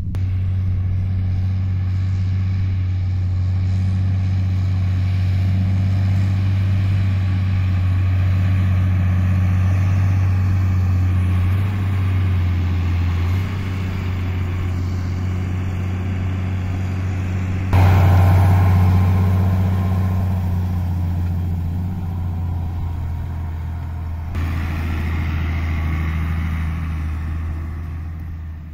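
New Holland T8050 tractor's diesel engine running steadily under load while pulling a disc harrow through stubble, a deep, even drone. It gets suddenly louder a little past halfway, then eases off near the end.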